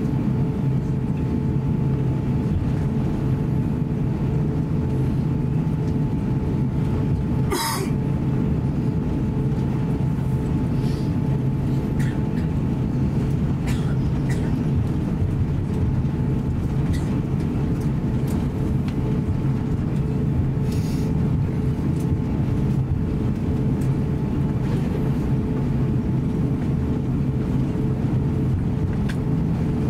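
Steady rumble and hum inside the cabin of an Airbus A350-900 taxiing on the ground, with a steady whine running through it. A brief clatter about eight seconds in.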